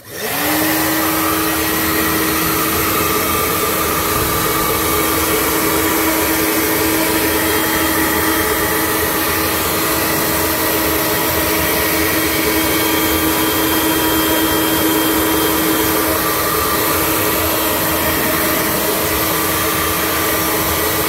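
BlowPro handheld hair dryer running on its highest, hottest setting. It spins up at the start into a steady, loud blowing with a fan whine, and the whine falls away as it is switched off at the very end.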